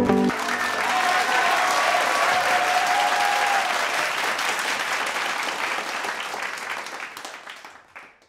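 Crowd applause, a dense patter of many hands clapping with a few faint voices, fading away gradually over the last few seconds.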